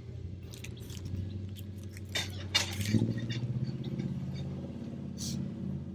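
Rustling and crinkling of picnic food wrappers being handled, with a few sharp crackles a couple of seconds in and another near the end, over a steady low hum.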